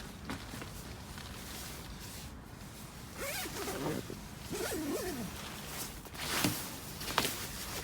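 A zipper being pulled: two longer drawn-out pulls around the middle, then two short quick zips near the end.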